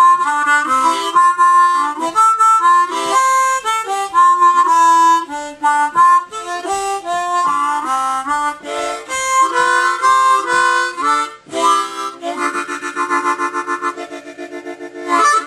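Hohner student harmonica in C, a beginner diatonic with a red plastic mouthpiece and a tuning unlike the regular blues harp, played as a melody with several reeds sounding together. Near the end it holds a chord with a fast, even shake, then stops abruptly.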